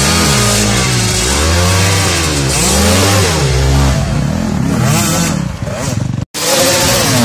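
Several enduro dirt-bike engines revving hard and unevenly, their pitch rising and falling in overlapping bursts, as the bikes are pushed and wheelied over a log obstacle.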